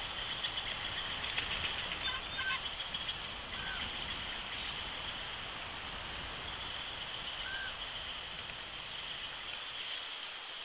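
Outdoor ambience at a bald eagle nest: a steady high hiss with a few short, faint bird chirps, and a brief cluster of clicks about two seconds in.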